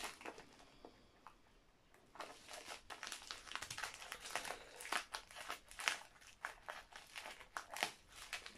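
Scissors cutting open a plastic mailer bag, with irregular snips and crinkling of the plastic starting about two seconds in.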